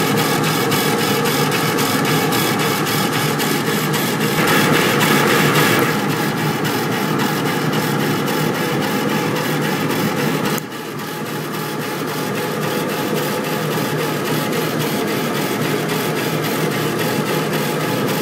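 Epilog laser engraver raster-engraving wood: the laser head carriage shuttles back and forth in a quick, even rhythm over a steady noise.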